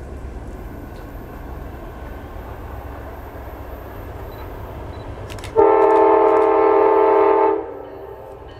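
Amtrak P42DC Genesis diesel locomotive approaching with a low, steady rumble, then sounding its air horn in one loud, steady chord held for about two seconds, a little past halfway through.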